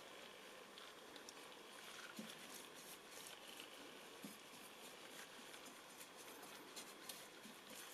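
Faint dabbing and scratching of a bristle paintbrush applying a liquid to a small model car body, with scattered light clicks.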